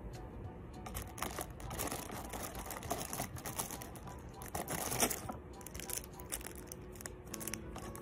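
Crinkling and rustling of plastic wrapping and a cardboard box as a cat roots inside the box and drags out a wrapped pack, in many short irregular crackles.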